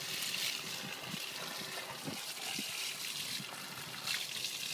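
Water running from the mixer's pump-fed recirculating hose into the tank, splashing onto calf milk replacer powder to wet it, with a few soft knocks.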